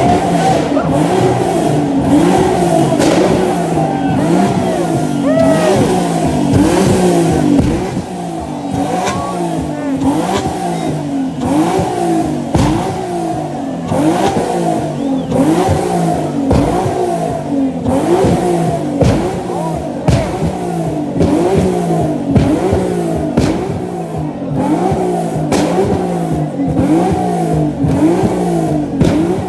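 A car engine revved again and again, about once a second, its pitch climbing and dropping back each time.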